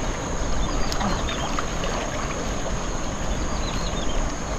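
Floodwater swirling and sloshing around a person wading while hauling a cast net in by hand, with a steady rushing noise and a low rumble underneath. A few faint high chirps sound about a second in and again near the end.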